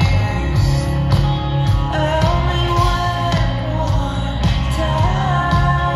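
Live rock band playing through an outdoor concert PA: a singer's voice over heavy bass and a steady drum beat.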